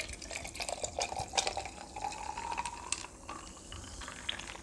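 Dark fizzy soft drink poured from a large plastic bottle into a glass mug: splashing and crackling fizz, with a tone that rises in pitch as the mug fills.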